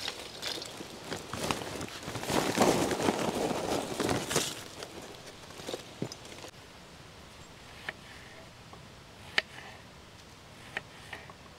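Rustling and crunching for the first four seconds or so, then quieter, with four sharp single clicks over the last few seconds. The clicks are a camping gas stove's igniter being pressed without the stove lighting, because its gas canister is empty.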